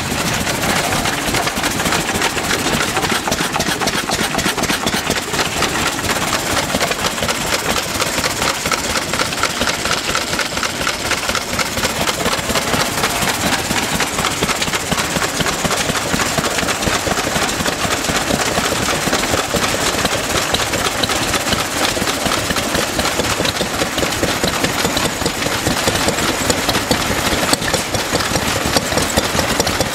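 Several vintage stationary engines running together, with a hopper-cooled Lister stationary engine close by: a steady, fast clatter of overlapping firing strokes at an even level.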